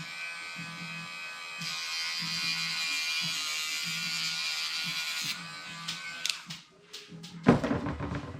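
A small electric motor whines steadily at a fixed pitch for about six seconds, getting louder about a second and a half in and stopping near the end, over background music with a steady beat. A short loud knock follows near the end.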